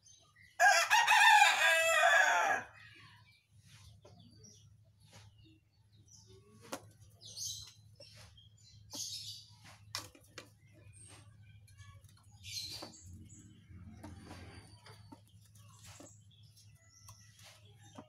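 A loud bird call of about two seconds near the start, with a wavering, crowing tone. After it, a caged whistling thrush hops and scrabbles about its wire cage, making scattered light knocks, clicks and short rustles.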